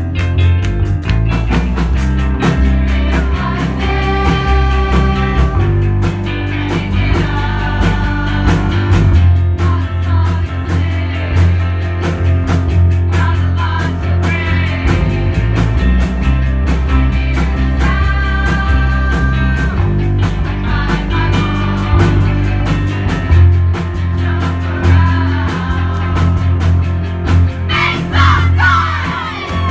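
A live rock band playing a song with sung vocals over guitar and a heavy, steady bass line: the camp's own rock-camp song, performed by the campers.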